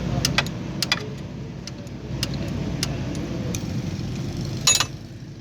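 Small car engine idling steadily with its accessory drive belt removed, with scattered light clicks and a brief cluster of clicks near the end.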